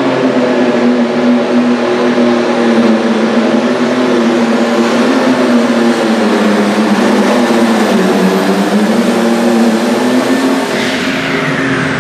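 Turbocharged diesel engine of a Case IH pulling tractor running at full power under load, its pitch sagging slowly as the sled bogs it down. About a second before the end the engine is shut off and a high turbocharger whine falls away.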